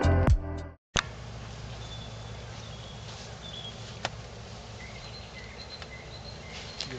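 The tail of electronic intro music ends within the first second. Then comes outdoor ambience: small birds chirping in short high notes over a steady low background hum, with a single sharp click about four seconds in.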